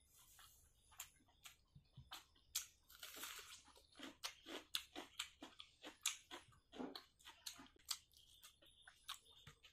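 Close-miked eating sounds of rice and pork dry fry eaten by hand: chewing and many short wet mouth clicks, with a longer rough stretch about three seconds in.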